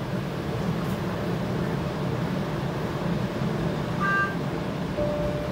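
Steady low hum inside the cabin of a TTC Flexity streetcar on the 504 King route, with a brief electronic beep about four seconds in and a short lower tone near the end.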